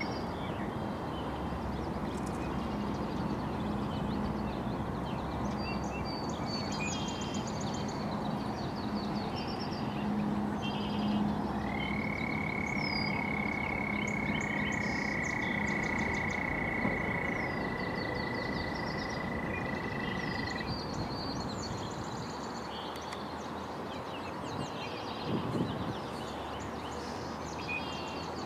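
Lakeshore frog chorus: two long, steady trills at slightly different pitches overlap in the middle, over many short bird chirps throughout and a low steady hum. A brief thump sounds near the end.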